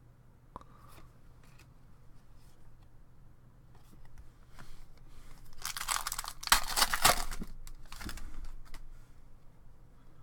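Trading card pack wrapper being torn open and crinkled: faint rustling, then a loud tear a little past halfway, followed by a shorter crinkle.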